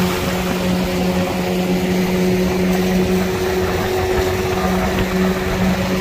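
Outboard motor running steadily at speed on a small wooden boat, a constant drone, with water rushing and splashing along the hull.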